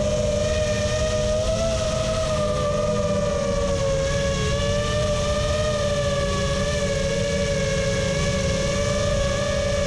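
Quadcopter racing drone's brushless motors and propellers whining steadily, heard from the drone's own onboard camera, the pitch drifting slightly up and down over a low wind rumble.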